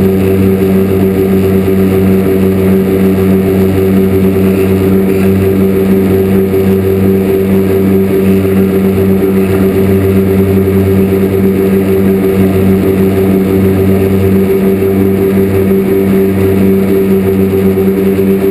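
Lazair III ultralight's twin small two-stroke engines running steadily at high power through the takeoff roll and lift-off, a loud, even drone that holds the same pitch throughout.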